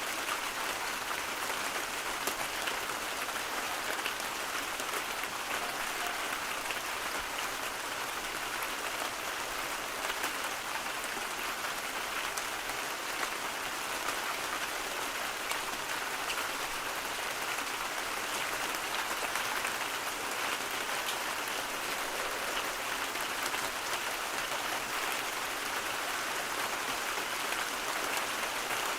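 Steady rain: an even hiss of dense, fine drop ticks that does not change.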